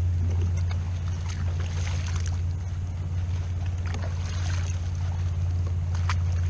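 A steady low hum, with scattered light splashes of water around the kayak.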